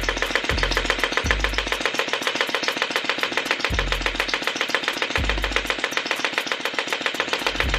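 P90 gel blaster firing on full auto, a fast steady rattle of about ten shots a second, gel balls striking a paper target. Deep bass notes come in every second or two underneath.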